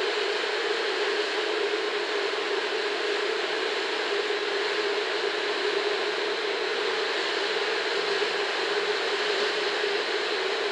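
KiHa 120 diesel railcar running as it pulls slowly out of the station: a steady, unchanging engine hum with hiss over it.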